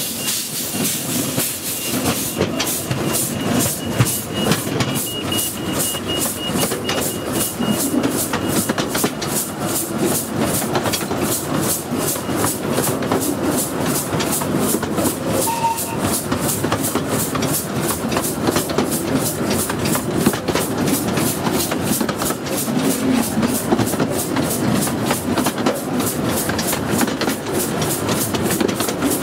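15-inch gauge miniature steam locomotive pulling away and gathering speed, its exhaust beats coming quicker and quicker, heard from the carriage right behind it. Steam hisses from the open cylinder drain cocks, and the wheels rattle on the track.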